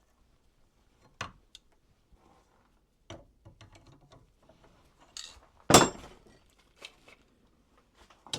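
Scattered clinks and knocks of metal tools and stock being handled, with the loudest knock a little before the six-second mark.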